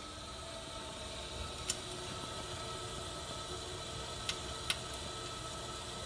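Bradford White natural gas water heater on its first heat-up: a steady hum with three sharp pops, one nearly two seconds in and two close together past four seconds. The popping is the tank and burner expanding as they heat for the first time, and it fades as the heater warms.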